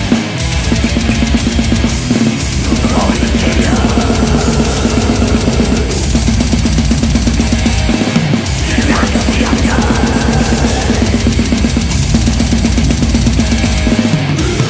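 A drum kit with Arborea cymbals played hard along with a heavy metal track: rapid bass drum strokes under snare hits and cymbals. The bass drum drops out briefly twice.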